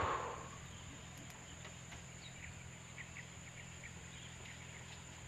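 A loud leafy rustle dying away in the first half second, then a faint run of short high chirps, about eight in a row, from the animal calling hidden inside the thicket, over a steady high insect drone.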